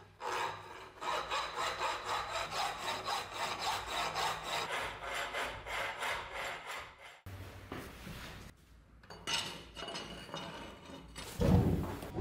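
A steel hand file worked back and forth over an old steel axe head clamped in a vise, in quick regular rasping strokes, shaping the head after its cracks were welded. The strokes break off about seven seconds in, come back fainter, and near the end a sudden loud low rush of a forge fire starts.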